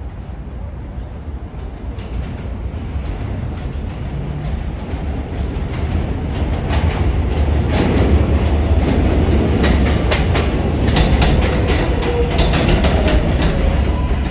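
A New York City subway 4 train, a stainless-steel R142-family car set, running on a steel elevated track. The noise grows louder as it approaches, and from about six seconds in the wheels click rapidly over rail joints.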